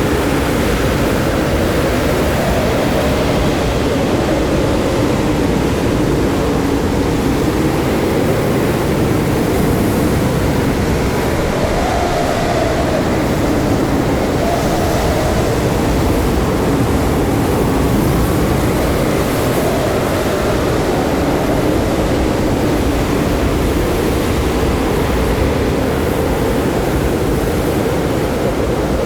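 Blizzard wind howling, a steady loud rush with howling tones that slowly rise and fall in pitch.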